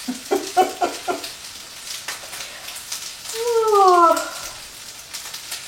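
Leftover rice frying and caramelizing in a pan, with a steady sizzle and light scrapes and ticks from stirring. A little past halfway, a short hum-like call slides downward in pitch; it is the loudest sound here.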